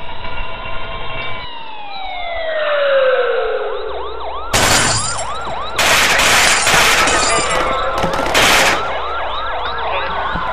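A whistle tone slides slowly downward. A police siren then yelps in fast, repeated rising and falling wails. Over the siren come loud bursts of rapid gunfire and breaking glass, one about four and a half seconds in and a longer one from about six to eight and a half seconds.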